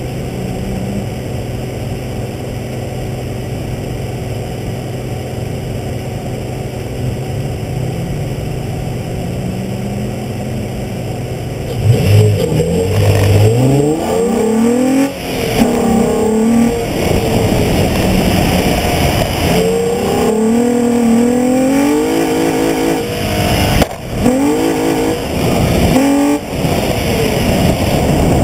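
Nissan 350Z's 3.5-litre V6 idling steadily for about twelve seconds, then launching hard and revving through an autocross course, its pitch repeatedly climbing and dropping as the car is driven sideways in drifts.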